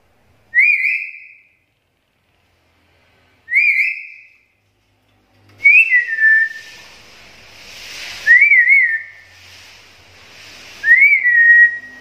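Black-capped lory giving five whistled calls a couple of seconds apart, each a quick up-and-down warble that settles into a held note. A faint hiss comes in behind the calls about halfway through.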